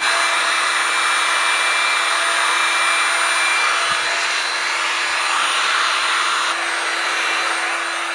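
Handheld hot-air blower running steadily, a loud even rush of air with a constant hum under it, heating double-sided adhesive tape to activate it.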